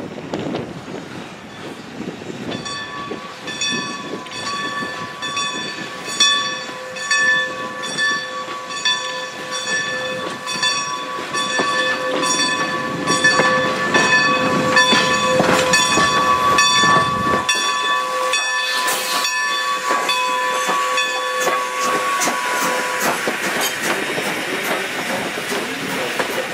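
Baldwin 2-10-0 steam locomotive working slowly past with its train: a steady beat of exhaust chuffs about two a second under a held, high ringing chord of several tones, which stops a few seconds before the end as the passenger coaches roll by.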